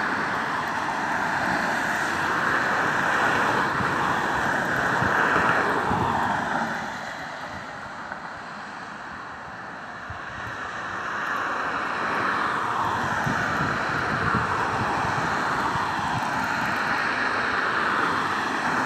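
Road-vehicle noise with an engine note that rises and falls in slow sweeps. It drops quieter for a few seconds in the middle.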